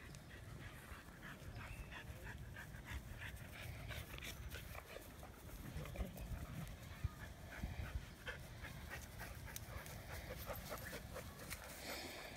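Golden Retriever puppy panting in quick, even breaths.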